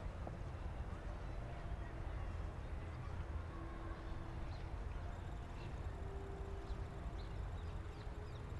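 Outdoor park ambience: a steady low wind rumble on the microphone, with faint, short bird chirps from about halfway through.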